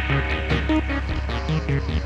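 Electronic background music: a steady bass under short, quickly repeating synth notes.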